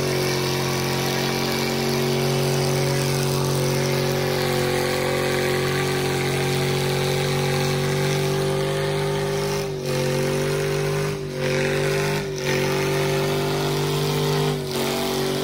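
Mega truck engines held at high revs under full load in a tug of war, a loud, steady drone that briefly dips and wavers in pitch several times in the second half.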